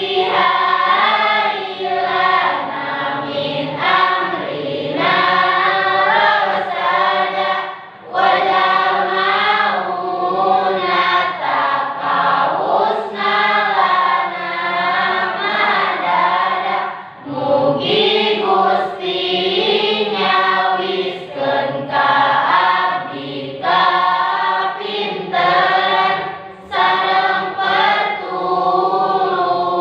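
A class of students singing together as a group, the song going in long phrases with brief pauses between them.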